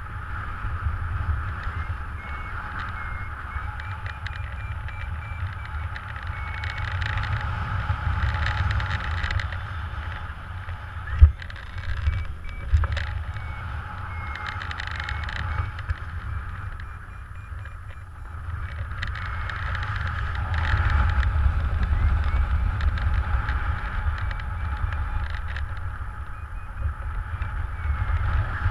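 Airflow buffeting the camera microphone in paraglider flight: a steady rumbling rush that swells and eases. A sharp knock comes about eleven seconds in and a lighter one a moment later, and faint short high beeps sound now and then.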